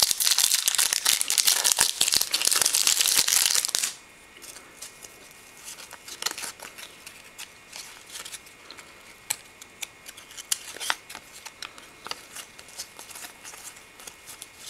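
A shiny foil wrapper on a 2007-08 Upper Deck MVP hockey card pack is torn open and crinkled loudly for about four seconds. Then, much more quietly, the cards inside are flipped through, with light flicks and ticks of card against card.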